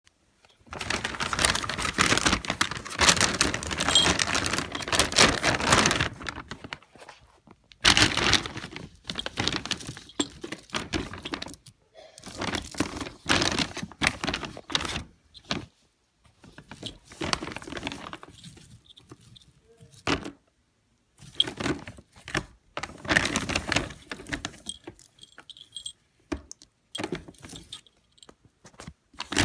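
A ferret digging and rolling in a plastic bag of pellet litter: pellets rattling and the bag crinkling in irregular bursts. The first burst lasts about five seconds, and shorter ones follow with brief quiet gaps between them.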